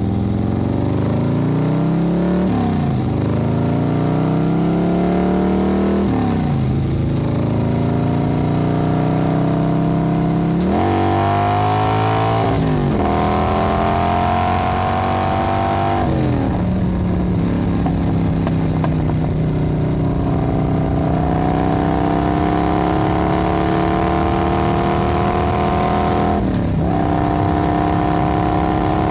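A combustion engine accelerating through the gears: its pitch climbs, drops sharply at each shift about six times, the later gears climbing long and slowly, then holds high near the end.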